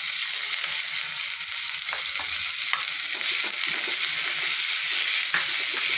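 Chopped green chillies and crushed ginger sizzling in hot oil with cumin seeds in a non-stick frying pan, stirred with a wooden spatula. A steady, loud high hiss, with a few light clicks of the spatula on the pan.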